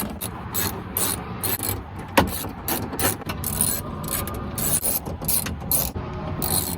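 Hand ratchet wrench clicking in quick back-and-forth strokes, running in the bolts that hold a window regulator inside a truck door.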